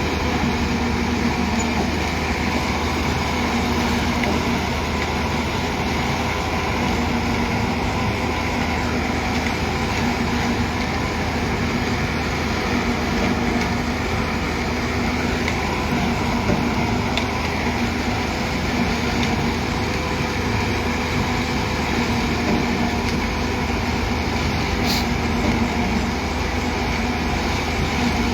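Heavy diesel construction machinery running steadily at a pile-concreting site: a constant engine drone with a low hum.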